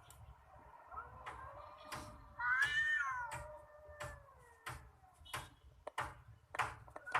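Cats yowling and meowing as in a cat fight, with a loud wavering yowl about two and a half seconds in over a longer low moaning cry. Sharp clicks come in between the cries.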